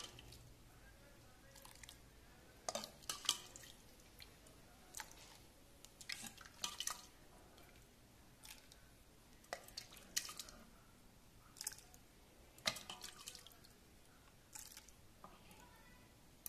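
Metal ladle clinking and scraping against the inside of a metal pressure-cooker pot as thick vegetable soup is scooped out, with soup dripping and splashing off the ladle. Faint, in short scattered clicks and small clusters every second or two.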